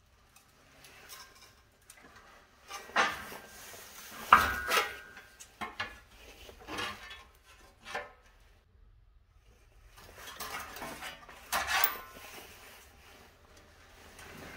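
Metal clanks and rattles of a steel sheet-metal panel being handled and worked in a sheet-metal brake: a scatter of separate knocks, the loudest about four seconds in with a short metallic ring, and another cluster near the end.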